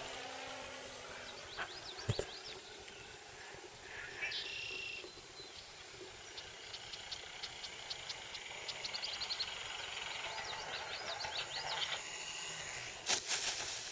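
Quiet open-air background with birds chirping, a run of faint regular ticks in the middle, and a short loud rush of noise about a second before the end.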